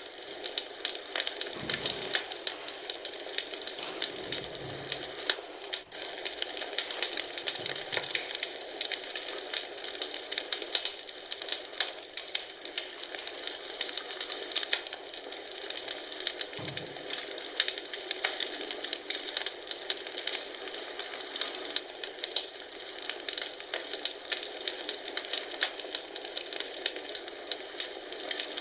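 Wood fire crackling in a fireplace: a dense, steady stream of small pops and snaps.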